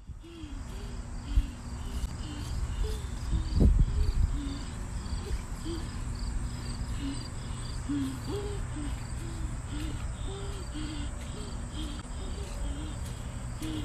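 Breathing through a snorkel tube, each breath making a short reedy hoot, about two a second in a steady rhythm over low rumbling water noise. A brief low thump comes about four seconds in.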